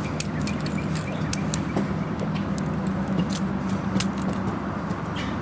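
Scattered sharp plastic clicks and snaps from the joints of a Hasbro Transformers Prime Wheeljack action figure being transformed by hand, over a steady low hum.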